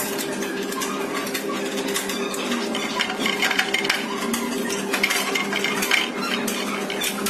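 Irregular metallic clicks and clinks as a bolt is fastened with a hand tool at the steel leg bracket of a large-format printer, busiest in the middle, over a steady hum.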